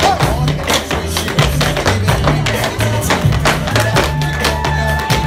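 Tap shoes striking plywood boards in fast, dense rhythmic taps, over recorded music with a bass line from a small portable speaker.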